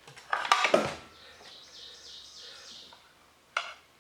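Several sharp knocks and clicks of the circular saw's plastic chip tray and housing being handled, then a bird's fast trill of repeated high chirps for about two seconds, and one last click near the end.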